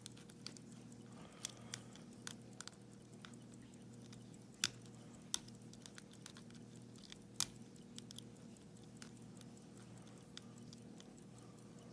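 Irregular small metallic clicks and ticks of a lock pick and tension wrench working the pin tumblers inside a Schlage-keyway padlock, a few louder clicks near the middle, over a faint steady hum.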